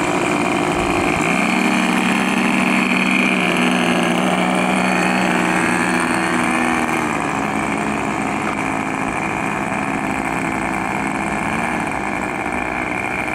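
The twin engines of a Hangar 9 B-25 Mitchell RC model running steadily as it taxis, growing a little quieter after about seven seconds as it rolls away. The owner has had trouble getting the two engines in sync.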